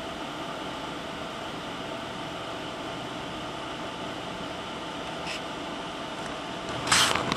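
Steady background hiss and hum of room noise, with a short burst of noise near the end.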